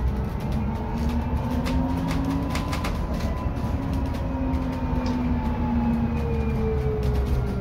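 BYD K9U electric bus's traction motor whining as the bus drives, the pitch gliding up and then falling near the end as it slows. Underneath are low road rumble and interior clicks and rattles.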